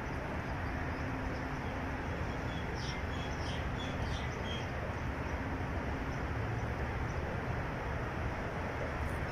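Steady outdoor background noise with a faint low hum, and a bird chirping several times in quick succession about three to four and a half seconds in.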